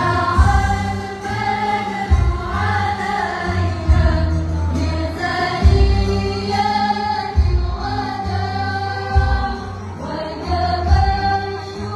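Voices singing together over amplified music, with deep bass notes pulsing under the melody, in the manner of an Islamic devotional song (sholawat).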